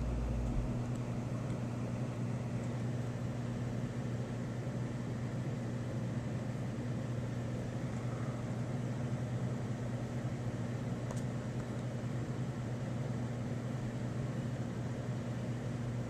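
Steady rushing of strong wind through leafy trees, with a constant low hum underneath.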